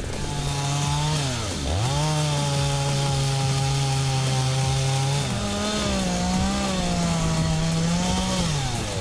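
Two-stroke chainsaw engine running under load in a cut. It bogs down sharply about a second and a half in and recovers, holds a steady pitch, revs higher about five seconds in, then falls away as the throttle is released near the end.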